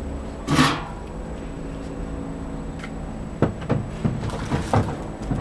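Parts being handled during reassembly of a Tecumseh lawn mower engine: a short, loud scraping rush about half a second in, then a run of light knocks and clicks near the end, over a steady low hum.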